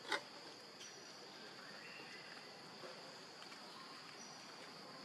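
Steady high-pitched drone of insects, with one sharp click just after the start.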